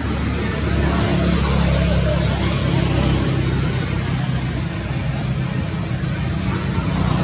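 A motor vehicle engine running steadily: a low hum under a wash of noise, a little louder from about a second in.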